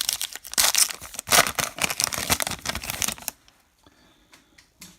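Crinkling and tearing of a baseball card pack wrapper for about three seconds, then only a few faint clicks of cards being handled.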